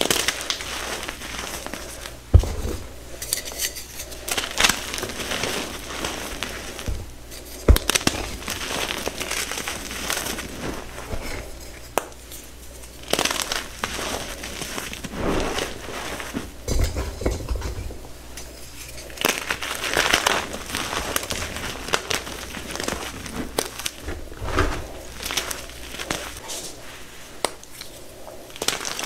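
Blocks of gym chalk crushed and crumbled between the fingers: dry, crunchy crumbling in repeated bouts, with sharp snaps of blocks breaking, two of them loud within the first eight seconds.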